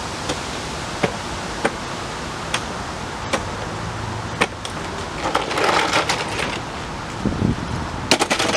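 A mechanic's creeper being fetched and set down, its casters rolling: scattered knocks, a stretch of rattling and scraping a little past halfway, and a cluster of sharp knocks near the end, over a steady background hiss.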